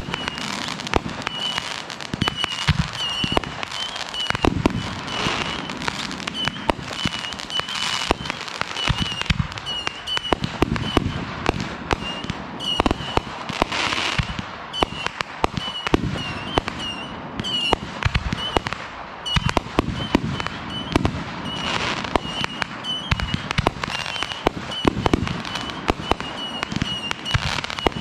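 Consumer fireworks going off without a break: rapid pops and crackles of bursting aerial effects, with heavier booms every few seconds.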